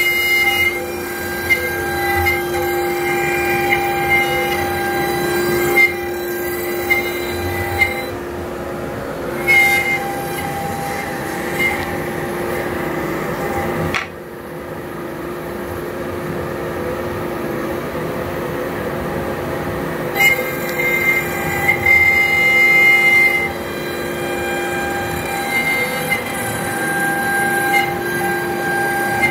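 Home-built CNC router engraving hardboard: the spindle and Nema34 servo motors whine in several steady tones over the steady running of a dust collector, the tones stepping slightly in pitch as the axes move, with a few short louder moments.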